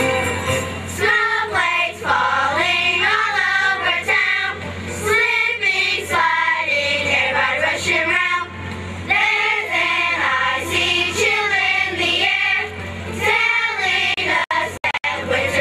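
Children's choir singing a Christmas song together, with a couple of very brief dropouts in the sound near the end.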